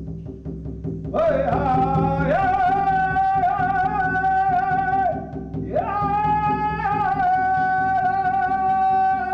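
A blessing song sung by a single voice in long, held notes, starting about a second in, with a short break before the second phrase.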